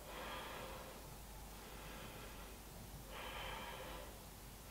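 Faint, slow breathing of a person holding a yoga stretch: one breath at the start and another about three seconds in.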